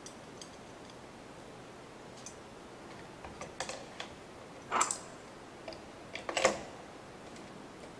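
Handful of light, scattered clicks and taps as a 7/16 wrench holding a nut works against the end of a TowMate tow light's housing, the sharpest a little before the middle and about two-thirds of the way through.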